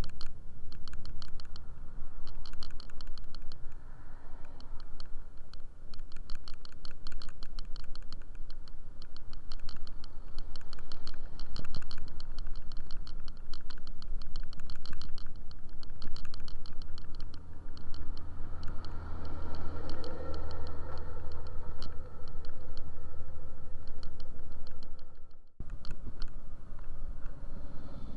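Riding a motor scooter: steady wind and road rumble on the microphone under a fast, even rattle of small clicks, like something loose shaking on the bike or camera mount. A louder low hum swells for a few seconds past the middle, and the sound cuts out for an instant near the end.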